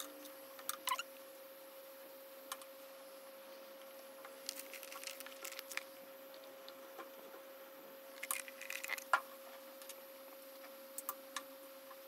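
Faint, scattered clicks and light clatter of plastic bottles, screw caps and a dropper being handled on a wooden table, in two small busier spells about halfway and about three-quarters through, over a steady faint hum.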